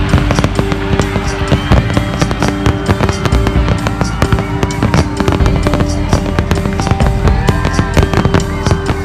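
Aerial fireworks bursting in a dense barrage of rapid bangs and crackles, with music playing alongside.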